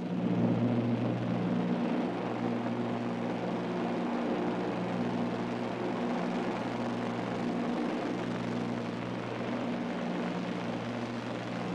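Propeller airliner's piston engines droning steadily, a low, even hum with a faint pulsing beat.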